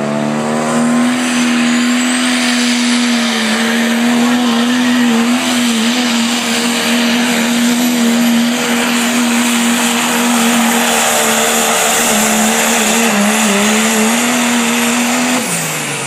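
Dodge diesel pulling truck's engine held at high revs under full load, a steady high note with a whistle rising over the first couple of seconds. Near the end the revs fall away sharply as the throttle comes off.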